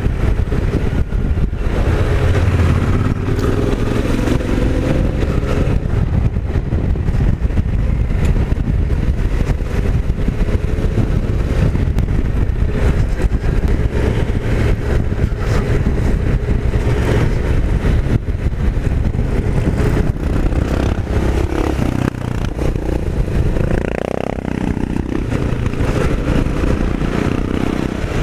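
Off-road motorcycle engine running while riding, with a continuous rumble; near the end the revs rise briefly.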